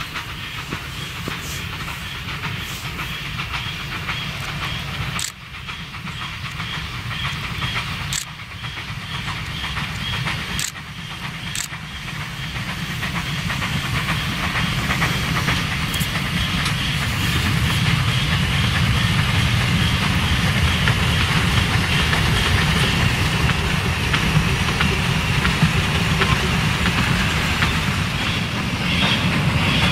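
Two Austrian class 298 narrow-gauge steam locomotives working a passenger train: a steady exhaust chuff and hiss over the low rumble of the engines and carriages on the rails. It grows steadily louder as the train comes closer, with a few sharp clicks in the first half.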